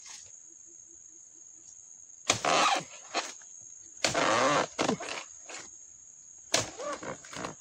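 Oil palm harvesting chisel (dodos) driven into the fibrous base of palm fronds three times, roughly two seconds apart. Each stroke is a sudden loud chop with a short rasping cut, as fronds are cut away to reach the fruit bunch's stalk. A steady high insect whine runs underneath.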